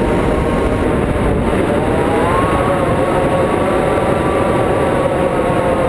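Airflow rushing past a hang glider in flight, loud on the glider-mounted camera's microphone, with a steady whistling tone underneath that drifts up in pitch about two seconds in.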